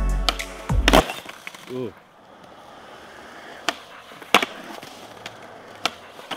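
Skateboard on a concrete bowl: a few sharp clacks of the board, about four spread over several seconds and the loudest past the middle, with faint rolling noise between them.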